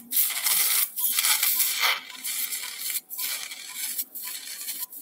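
Surgical suction tip aspirating saline flush from a spinal drill slot. It makes a loud hissing slurp for about the first two seconds, then a softer, uneven sucking noise that cuts out briefly a few times.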